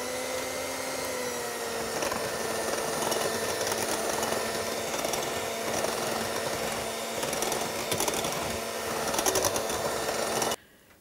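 Electric hand mixer running on low speed, its beaters working instant pudding mix and milk in a glass bowl: a steady motor hum that cuts off suddenly near the end.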